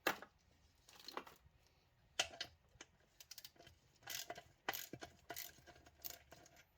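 Scattered light clicks and small knocks of tools and parts being handled, with a few sharper clacks, the clearest about two seconds in and about four and five seconds in.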